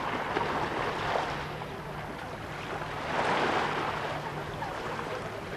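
Sea water washing in swells that rise and fade, with wind noise on the camcorder microphone and a faint steady hum underneath.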